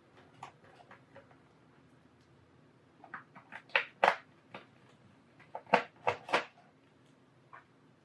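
Small sharp clicks and taps from handling tiny laptop screws and a screwdriver on the plastic underside of the laptop: a cluster about three seconds in and another around six seconds, with quiet between.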